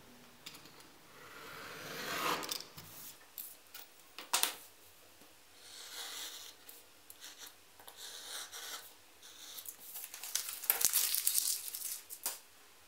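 Snap-off utility knife blade drawn through paper along a steel ruler in several long rasping strokes, with a few sharp clicks between them.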